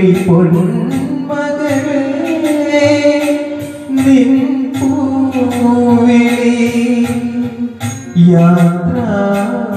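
A man singing a Malayalam film song into a microphone, holding long wavering notes, over recorded backing music with a steady percussion beat.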